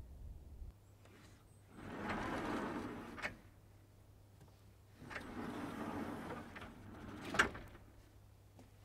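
A sliding door rolling open along its track and stopping with a knock, then a few seconds later rolling shut and closing with a louder knock.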